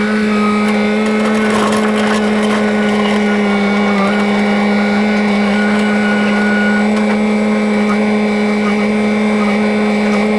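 An engine running steadily at a constant speed, giving an even, unchanging hum with no revving or load changes.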